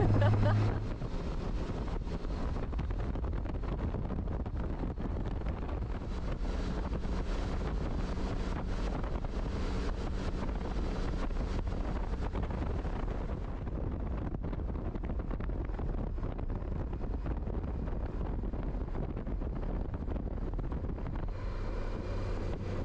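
Wind rushing over a helmet-mounted microphone on a moving motorcycle, over the steady low drone of its engine and tyres.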